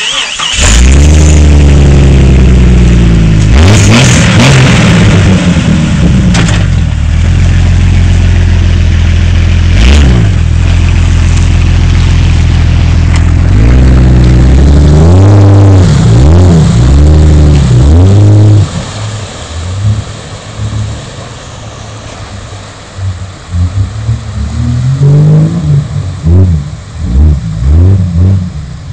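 Jeep Cherokee XJ engine running with no muffler, the exhaust loud and open after the muffler was ripped off. It comes to life right at the start and is revved hard again and again, the pitch swinging up and down. About two-thirds of the way in it drops back to a lower, rougher running note, with a few short blips of the throttle near the end.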